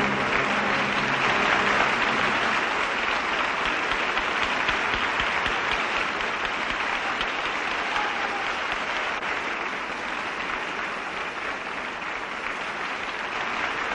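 Sustained applause from a large assembly of people clapping, easing off slowly toward the end.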